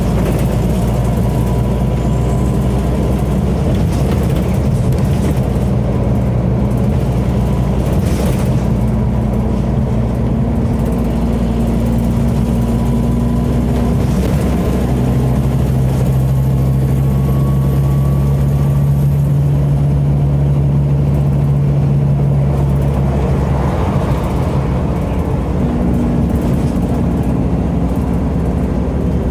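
Scania DC09 9.0-litre five-cylinder diesel of a Scania Omnicity single-deck bus, heard from inside the passenger saloon, running continuously. Its note steps to a new steady pitch about halfway through and changes again near the end.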